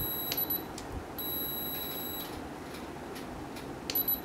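Yongnuo 560 speedlite being fired by a radio trigger: a few light clicks, and twice a high, steady electronic tone lasting about a second.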